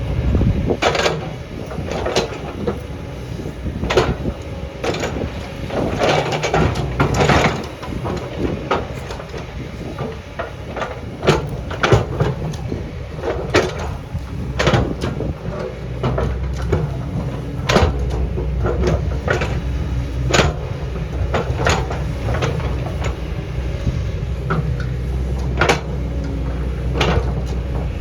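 Hydraulic excavator's diesel engine running steadily, with irregular sharp knocks and scrapes as the bucket digs into rock. The engine rumble gets heavier about halfway through.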